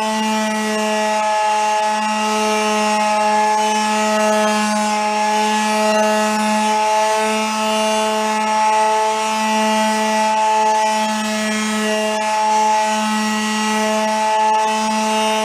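Electric palm sander running with a steady hum, its 320-grit paper rubbing on the bare wooden shell of a 1936 Slingerland snare drum.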